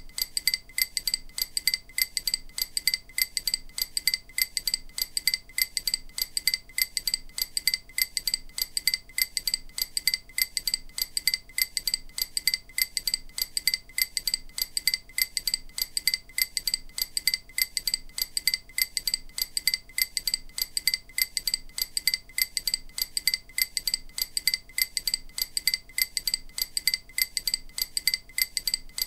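EMDR bilateral-stimulation audio: a rapid, even series of short, bright, clinking pings, several a second, meant to alternate between the left and right ears.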